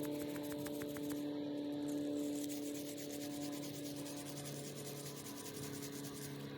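Quick, even rubbing strokes against a carburetor part being cleaned by hand, over a steady hum.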